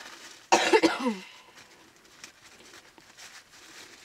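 A person coughing once, a harsh burst about half a second in whose voiced tail falls in pitch, lasting about half a second.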